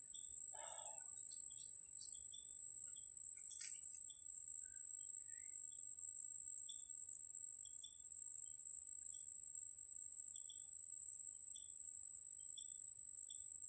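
A steady, high-pitched insect drone, with short high chirps scattered through it every second or so.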